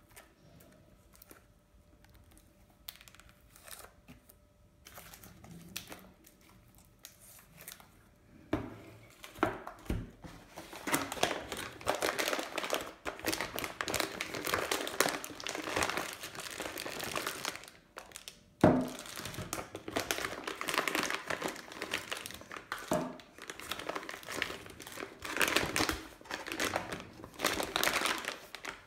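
Plastic packaging crinkling and rustling as bags and inflatable air-column wrapping are handled: faint for the first several seconds, then loud and continuous. A single thump about two-thirds of the way through.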